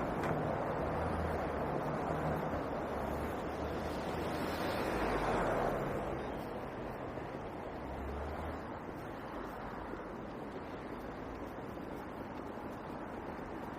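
Road traffic noise, with one vehicle passing about five seconds in, its sound swelling and then fading.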